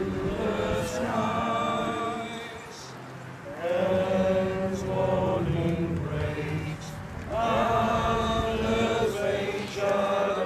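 A large outdoor crowd singing a hymn together in three sung lines, with short breaks between them.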